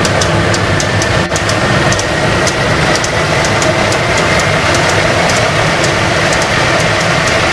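Westinghouse J34 turbojet engine running, spitting a flame from the exhaust: a loud, steady rush of jet noise with a whine that rises slowly in pitch over the first few seconds and scattered sharp crackles.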